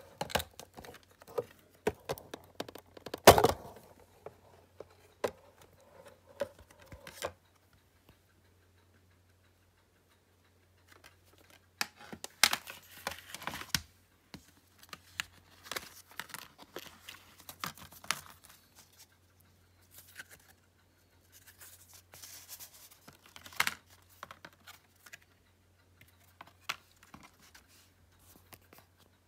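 Packaging and cases being handled and opened: scattered clicks and taps, bursts of tearing and rustling, and one sharp knock about three seconds in.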